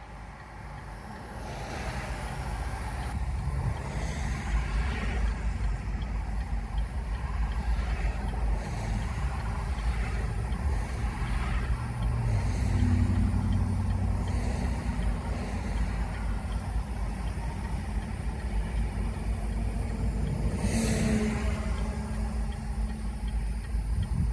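Road traffic: cars and trucks passing one after another over a constant low engine rumble. A low steady engine hum comes in about halfway through and again near the end.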